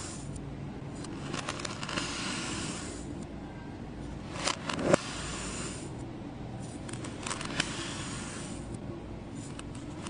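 A knife slicing through a block of kinetic sand: a soft, crumbly hiss as the blade passes through the sand, with a few sharp clicks around the middle and near the end.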